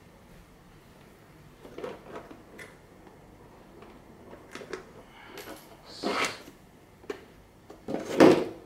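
Handling noise as the plastic body shell of an HSP Flying Fish 1/10 RC drift car is unclipped and lifted off its chassis: scattered light knocks and rustles, the loudest near the end.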